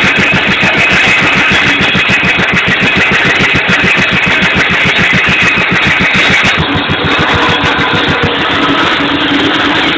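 A Wolseley WD stationary engine running steadily with a quick, even beat as it belt-drives a circular saw bench. Near the end a steady hum joins it as timber is fed to the spinning blade.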